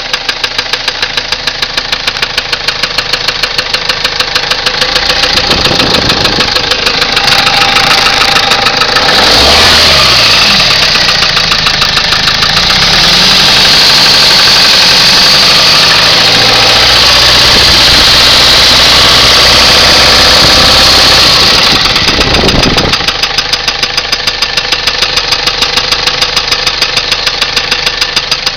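2007 Ford Transit diesel engine idling with a fast, regular rattling clatter. It is revved up about six seconds in, held at raised revs for a while, then let fall back to idle about three-quarters of the way through. The rattle is the engine fault the owner is showing.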